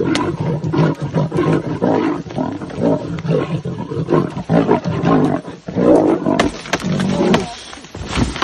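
Lion growling in a long string of rough, irregular bursts.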